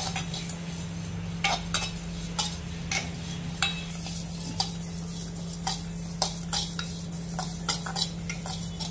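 A steel slotted spatula stirring and scraping spices and sesame seeds as they dry-roast in a metal kadai, with irregular clinks against the pan. A steady low hum runs underneath.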